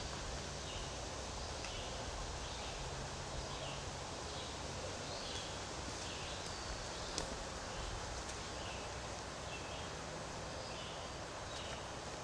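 Woodland ambience: a steady outdoor hiss with faint, short chirps of small birds repeating through it, and a single sharp tick about seven seconds in.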